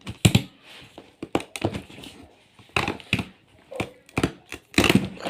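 Cardboard packaging being handled and opened: a rapid, irregular series of crunching, crackling knocks.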